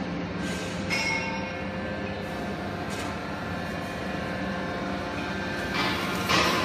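Hydraulic baling press's power unit running with a steady machine hum. A few brief metallic ringing tones come about a second in, and a louder rattle near the end.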